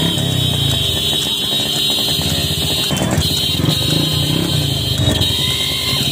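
Many motorcycle engines running together on the road, with a steady high-pitched whine over them that breaks off briefly twice.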